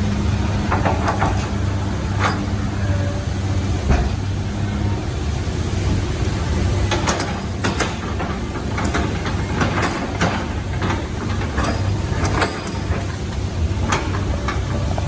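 A heavy vehicle's engine runs with a steady low hum, under a series of sharp knocks and clanks. The knocks come thickest from about seven to thirteen seconds in.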